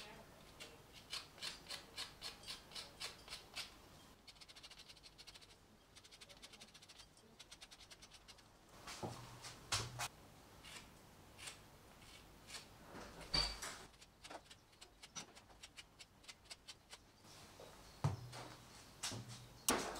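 A citrus zester scraped over a lemon's peel in quick, even strokes, roughly three a second, followed by a run of fainter, faster scraping. Later come a few soft knocks and one sharper click.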